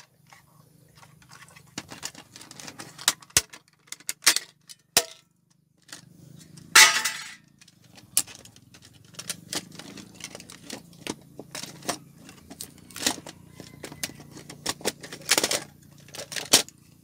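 A computer DVD-ROM drive being taken apart with a screwdriver: its metal and plastic parts click, knock and clatter, with a louder scraping rattle about seven seconds in and another burst near the end.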